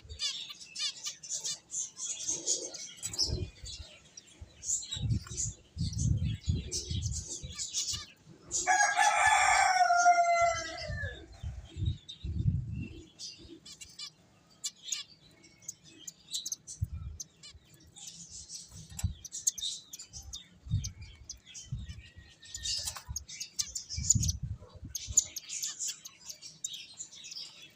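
Small finches chirping in quick, high twitters, with soft low thumps scattered through. About nine seconds in, a rooster crows once, a loud call of about two seconds that falls in pitch at its end.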